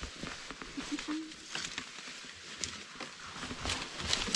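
Faint footsteps through leaf litter and undergrowth, with scattered small crackles and rustles of leaves and twigs.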